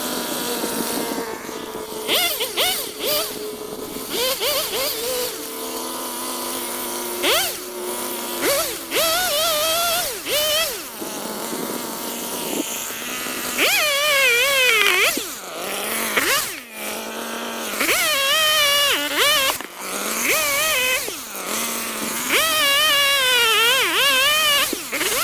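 Two-stroke chainsaw revving and cutting wood, its engine pitch wavering and dropping under load, then rising again between cuts.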